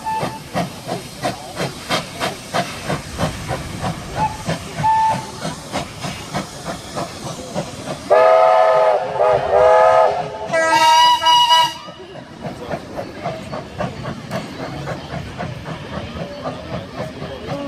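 Double-headed steam locomotives working a passenger train, their exhaust beating in a steady, even rhythm of chuffs. About eight seconds in, one long chime whistle sounds, dipping briefly in pitch. A shorter, higher-pitched whistle blast follows, and then the chuffing carries on more quietly as the carriages roll by.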